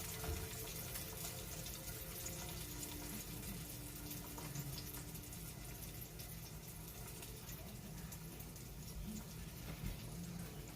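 Egg frying in a cast iron skillet, a steady soft sizzle and crackle.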